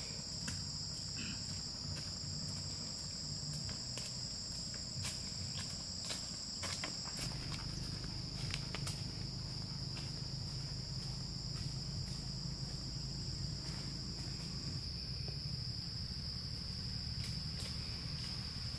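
Steady, unbroken high-pitched drone of insects, with a low rumble underneath and scattered light clicks and knocks.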